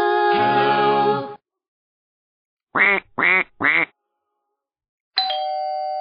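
Electronic doorbell chime playing a string of built-in novelty sound effects through its speaker. A short musical sound ends about a second in, then three quick duck quacks, then a ding-dong chime with long ringing tones starts near the end.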